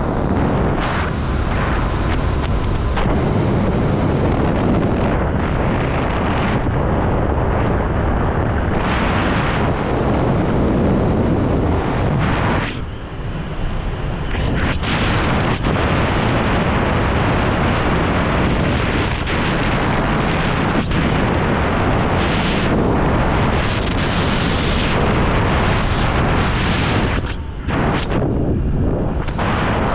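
Loud wind buffeting on a camera microphone from the airflow of a skydiver flying under an open parachute canopy, with two brief lulls, about halfway through and near the end.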